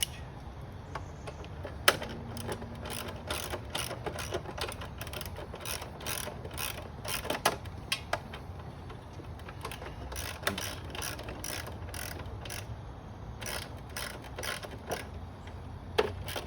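Hand ratchet wrench clicking in quick irregular bursts as a bolt on the exhaust is worked loose, with a couple of sharper metal knocks.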